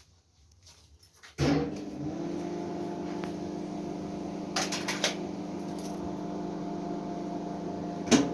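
A welding machine is switched on about a second and a half in and then hums steadily, ahead of tack-welding a nut. A few sharp clicks come over the hum.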